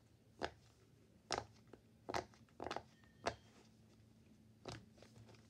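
Silicone pop-it fidget bubbles being pressed through one at a time: about seven short, sharp pops at an uneven pace.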